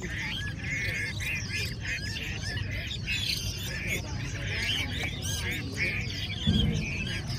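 Many caged Chinese hwamei singing at once: dense, overlapping whistled phrases over a low background rumble, with a brief thump about six and a half seconds in.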